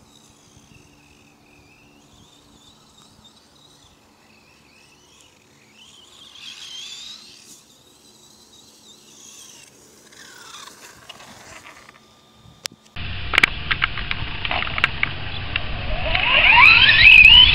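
The Traxxas Stampede 4x4's 3400kv brushless motor whining faintly as the RC truck drives across grass, rising and falling with the throttle. About 13 seconds in it becomes close and loud over a rough rushing noise with clicks, and near the end the motor's whine climbs steeply as the truck accelerates.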